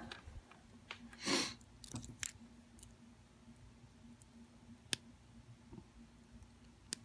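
Small scattered metallic clicks and ticks of a lock pick and tension wrench working the pins of an Abus 72/40 padlock, with one louder short rustling burst a little over a second in.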